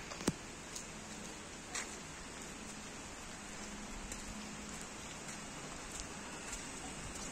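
Steady hiss of light rain falling on wet ground. A sharp click sounds about a third of a second in, and a couple of softer taps follow within the first two seconds.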